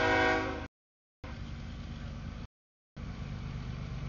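Freight locomotive horn sounding at a grade crossing, cutting off under a second in, followed by the low rumble of the passing freight train. The audio drops out to total silence several times, so the rumble comes in abrupt chunks.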